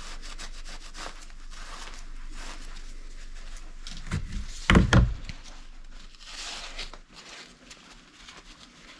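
A gloved hand rubbing and wiping a dirty bumper part clean, a steady scratchy rubbing with a loud low thump a little under five seconds in.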